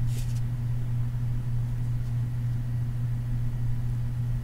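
A steady low hum with a faint hiss, unbroken, the background noise of the narration recording; no voice.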